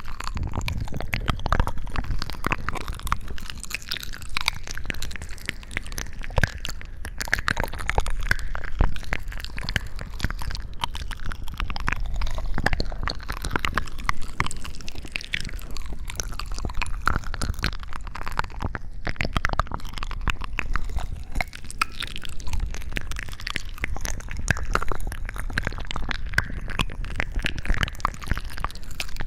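Close-miked wet squishing and crackling, a dense run of small clicks over a steady low rumble, as in ASMR slime or food handling.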